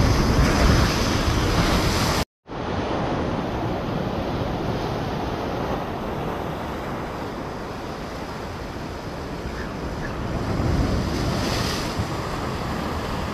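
Sea waves surging and splashing against jetty rocks, with wind on the microphone. It is loudest in the first two seconds as a wave breaks up onto the rocks, cuts out completely for a moment about two seconds in, then continues as a steady wash of surf that swells a little again near the end.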